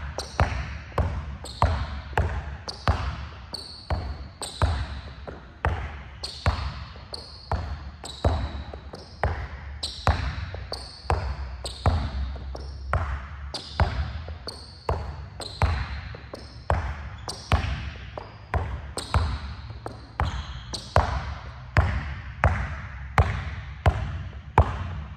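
A basketball being dribbled hard and low in a steady run of bounces, about two a second, each bounce a sharp smack with a short ringing ping.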